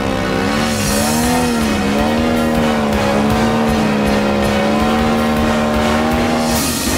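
Engine of a 42% scale Ultimate aerobatic model biplane running at hovering throttle. Its pitch wavers for the first couple of seconds, then holds steady. Near the end the throttle drops briefly and then rises again.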